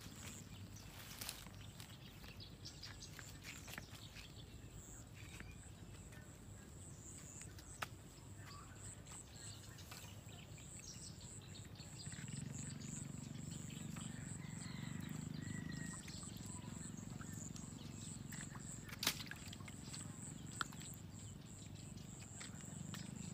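Quiet rural outdoor ambience with a steady, high-pitched, slightly pulsing insect trill. A low hum rises for a few seconds around the middle, and two sharp clicks come near the end.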